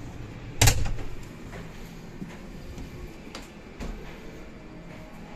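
Metal lever handle and latch of a train coach's interior door clunking as the door is worked: one loud knock with a low thud just under a second in, then a few faint clicks.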